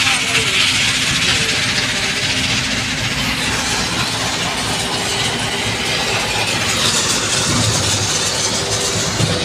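A vehicle's engine running steadily as it drives slowly over gravel, heard from inside its cab, with a constant rattling noise.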